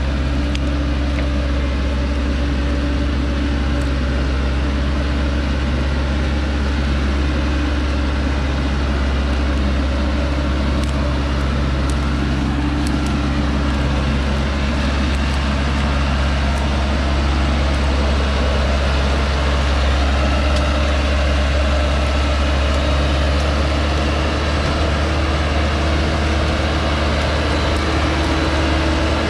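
Heavily loaded log truck's engine running steadily under load as it crawls up a muddy slope, a low, even hum with no change in pace.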